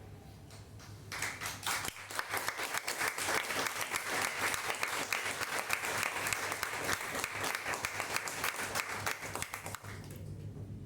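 Audience applauding: a few scattered claps, then many hands clapping together from about a second in, dying away near the end.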